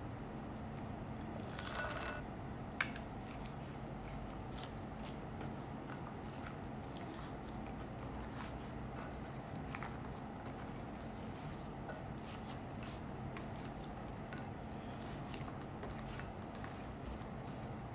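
Hands kneading bread dough with chopped walnuts in a glass mixing bowl: faint, scattered clicks and taps against the glass over a steady low hum. There is a brief ringing scrape about two seconds in and a single sharp tap just after it.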